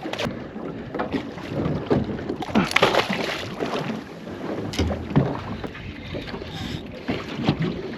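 Water sloshing and slapping against the hull of a small fishing boat rocking on a swell, with wind buffeting the microphone and a few short splashes or knocks.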